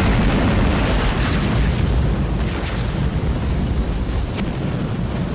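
Fiery explosion sound effect: a sudden, loud, sustained rush of noise with a deep low rumble, easing off slightly near the end.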